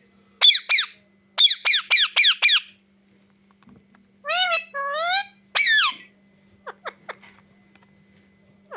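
Pet parrot calling in short, sharp, high-pitched squawks: two quick calls, a fast run of five falling calls, then three longer bending calls about four seconds in, followed by a few faint clicks.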